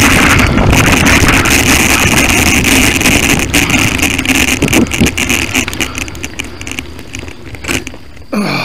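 Wind rushing over the microphone along with tyre and drivetrain noise from a bicycle rolling fast over a rough trail, with scattered clicks and knocks. The rush eases off over the last few seconds as the bike slows, and a short grunt comes at the very end.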